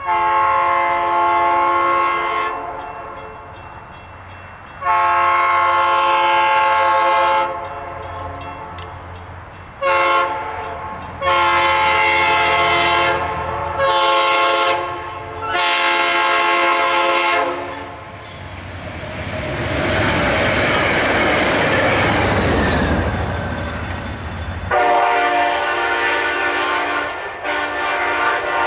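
Locomotive's multi-chime air horn sounding a series of long and short blasts in the long, long, short, long pattern used at grade crossings, repeated. Partway through, the horn gives way for several seconds to a loud rushing rumble of the train, then the horn sounds again near the end.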